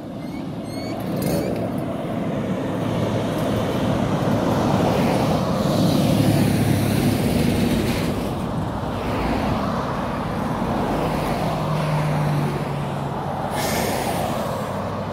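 Road traffic: cars passing on a two-lane highway, their tyre and engine noise swelling to a peak about six seconds in, then a low engine hum from another vehicle, with a short hiss near the end.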